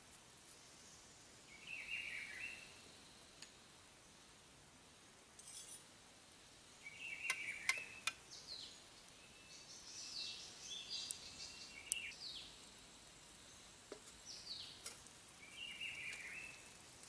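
A few sharp clinks of a metal spoon against a small metal camp kettle as herb leaves are pushed into it. Birds call around it, one short call repeated three times and several quick falling whistles.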